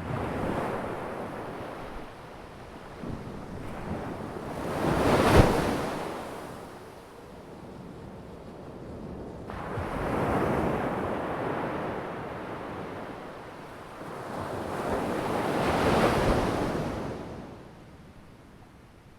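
Ocean waves breaking on a shore: three swells of surf about five seconds apart, each rising and falling away, the first peaking in a sharp crash about five seconds in.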